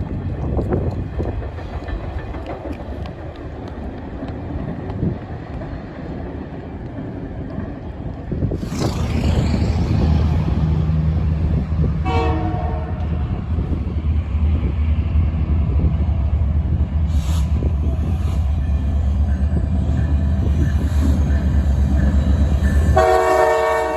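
Canadian Pacific diesel locomotive approaching, its heavy engine rumble coming in about nine seconds in. The horn gives a short blast a few seconds later, then starts a long, loud blast near the end.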